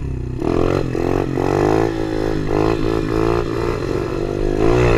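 Tao Tao DB24 110cc single-cylinder four-stroke pit bike engine revving up and down repeatedly while being ridden through the gears.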